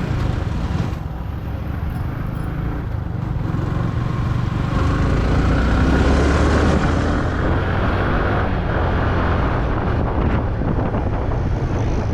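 Yamaha R15 V3's 155 cc single-cylinder engine running under way in traffic, with road and wind noise. A louder rush of noise builds from about four seconds in and peaks around six to seven seconds before easing.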